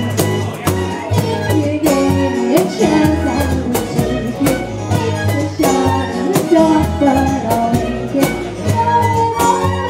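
Live folk band playing, with a bowed fiddle melody over acoustic guitar.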